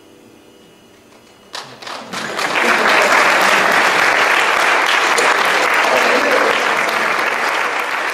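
Audience applause breaking out about a second and a half in, after the last notes have faded, and quickly swelling to a full, steady ovation.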